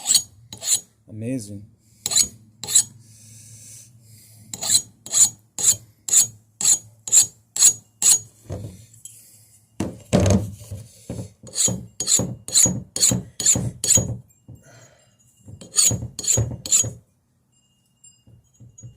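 Hand file stroking along a freshly ground steel blade edge to take off the grinder burrs, in runs of about two strokes a second with short pauses. The strokes stop a couple of seconds before the end.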